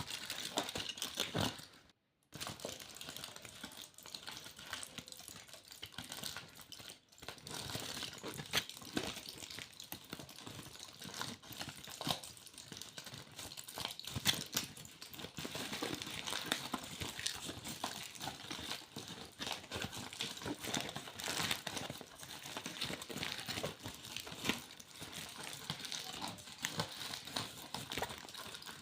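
Aluminium foil being crinkled and crumpled by hand in close detail: dense, irregular crackling, with a brief break about two seconds in.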